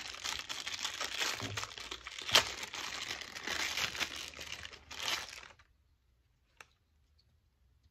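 Thin clear plastic bag crinkling and rustling as it is pulled off a small tripod mount piece, with one sharp crackle about two seconds in. The crinkling stops after about five and a half seconds, followed by a single faint click.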